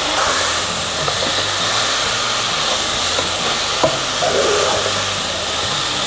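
Chicken curry frying in a pot, sizzling steadily while it is stirred with a wooden spatula, with a light knock of the spatula about four seconds in.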